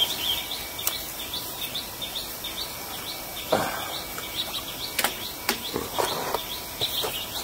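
A bird chirping over and over in short high notes, about three a second, with a few brief knocks from handling fishing gear.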